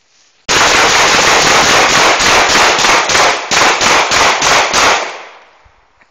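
Two handguns fired rapidly together: a dense, overlapping string of shots for about three seconds, then separate shots about four a second. The firing stops about five seconds in, and an echo fades after it.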